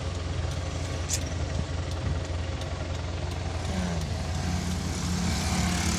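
Car engine and road noise heard from inside the cabin, a steady low rumble; a steady higher drone joins about four seconds in.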